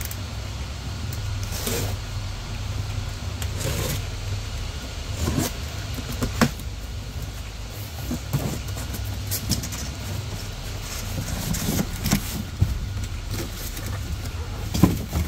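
A cardboard shipping box being cut open with a box cutter, its flaps pulled apart and the box lifted off, giving rustling, scraping and a few sharper cardboard thumps, the loudest near the end. A steady low hum runs underneath.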